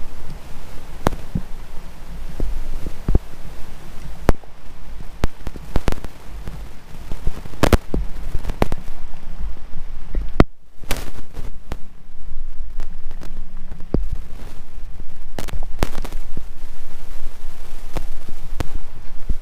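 Wind buffeting the camera microphone as a constant low rumble, with many scattered sharp taps and clicks at irregular intervals.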